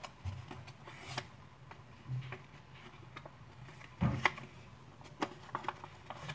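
Square sheet of paper being folded and creased by hand on a wooden tabletop: scattered crinkles and crisp creasing clicks, with a louder knock about four seconds in.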